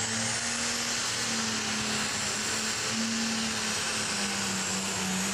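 Limited Pro Stock pulling tractor's turbocharged diesel engine running flat out under load while dragging the weight sled: a steady engine drone with a high turbo whine that rises in the first second and then holds.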